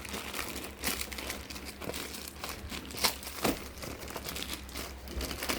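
Packaging being handled and unwrapped, crinkling and rustling irregularly, with a few sharper crackles about three seconds in.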